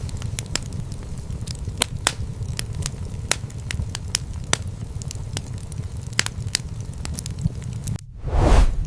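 Wood fire crackling in a fireplace, with frequent sharp pops and snaps over a low steady rumble. Near the end the crackle drops out for a moment and a short, loud whoosh swells and fades.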